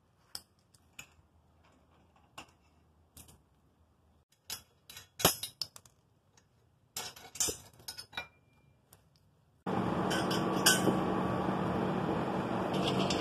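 Hand tools and bolts clinking against a steel go-kart frame as it is unbolted: scattered sharp metallic clicks and clinks. About ten seconds in, a steady hissing hum starts and stays.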